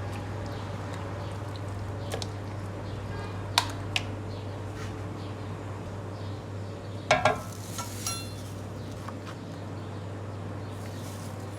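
Kitchen utensils and dishes clinking. There are two sharp clinks about three and a half seconds in, and a louder clatter with a brief ringing tone a little past halfway, all over a steady low hum.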